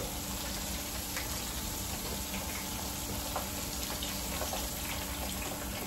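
Breaded pork chop deep-frying in hot oil: a steady sizzle with scattered small pops.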